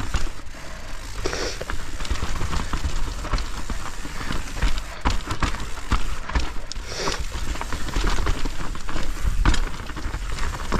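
Mountain bike riding down a snowy trail: a steady rush of tyre and riding noise with a low rumble, broken by many irregular knocks and clatters as the bike goes over bumps.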